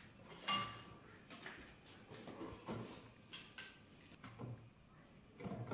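Objects being handled, giving scattered light knocks and clinks. About half a second in there is one sharper clink that rings briefly, like a dish or metal struck.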